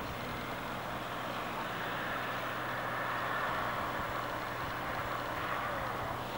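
Many boat engines running at a distance across the water, a steady drone with a low hum, swelling a little in the middle.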